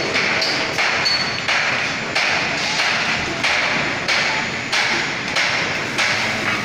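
Hammer blows on a construction site, a steady run of sharp strikes about three every two seconds.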